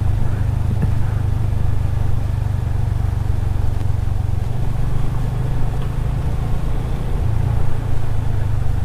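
Motorcycle engine running at a steady cruising pace, a constant low hum with rushing noise over it.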